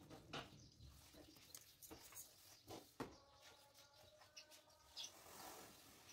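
Near silence, with faint soft strokes and clicks of a long knife drawing through a thick polyurethane foam sheet. A faint steady tone is held for about a second and a half, starting about three seconds in.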